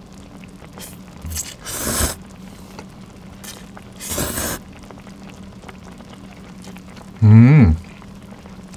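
A person slurping ramen noodles, two quick slurps about two and four seconds in, followed near the end by a short pitched vocal sound from the eater, the loudest moment. A faint steady hum runs underneath.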